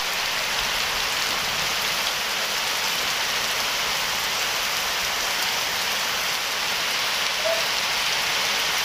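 Heavy rain falling steadily on a muddy, waterlogged yard and the leaves of surrounding trees: a dense, even hiss.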